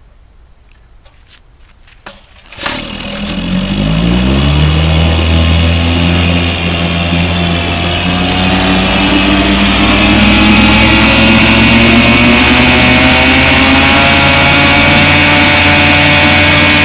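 1959 Evinrude Lightwin 3 hp two-cylinder two-stroke outboard motor starting up about two and a half seconds in after a short sharp sound. It revs up over a couple of seconds, then runs steadily, its speed creeping up slightly.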